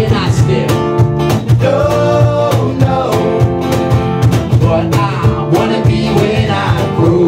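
A small live acoustic band playing a song: acoustic guitar and electric bass over a steady cajón beat, with a sung lead vocal line coming and going.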